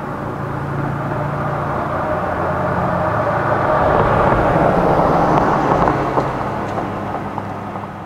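A road vehicle passing by, its noise swelling to its loudest about four to five seconds in and then fading, over a low steady hum.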